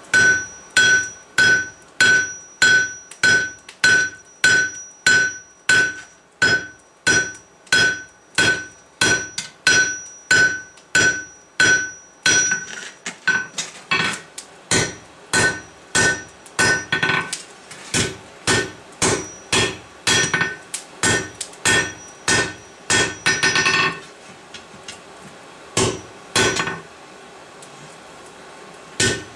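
Hand hammer striking a hot steel bar on an anvil, drawing it out, about two blows a second. A steady high ring sounds with each blow through the first half, then fades while the blows go on. The hammering breaks off briefly twice near the end.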